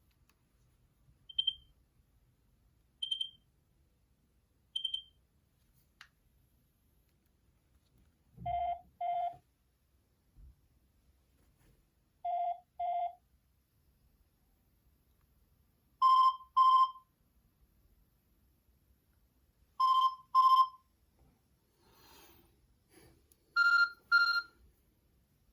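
Nokia 6260 mobile phone playing its built-in ringer tones through the phone's small speaker. First come three short high beeps about 1.7 s apart. Then pairs of short electronic beeps repeat every few seconds, two pairs at a low pitch, two higher and louder, then a higher pair near the end.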